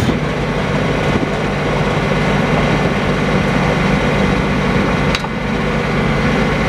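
New Holland TC33D compact tractor's three-cylinder diesel engine running steadily as the tractor moves slowly forward. A brief click sounds about five seconds in.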